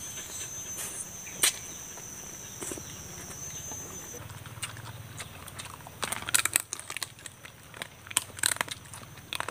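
Biting and chewing on roasted chicken, crunching in clusters about six and eight seconds in. A steady high insect buzz runs underneath and stops about four seconds in.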